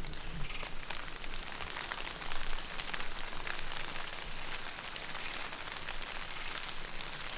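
Light drizzle falling, with the fine ticks of many individual raindrops landing.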